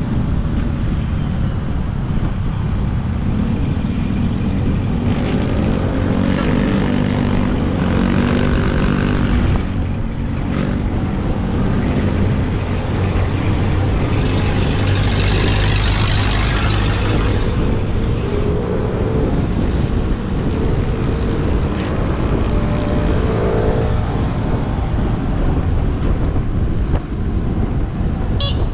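Steady wind rumble on the camera microphone of a moving electric scooter, mixed with the engines of nearby road traffic running and shifting in pitch.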